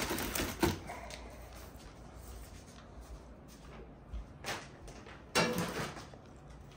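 Cardboard shipping box being handled as its flaps are opened and folded back: a sharp knock about half a second in, a couple of short rustles later, and a louder scrape of cardboard near the end.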